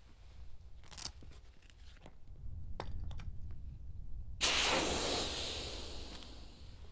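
Air rushing out of an inflatable cabin tent's opened valve: a sudden loud hiss that slowly fades as the tent deflates. A few faint clicks and rustles come before it.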